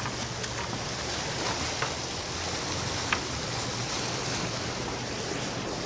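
Sea surf washing steadily against a rocky shore, with a few light taps, the sharpest about three seconds in.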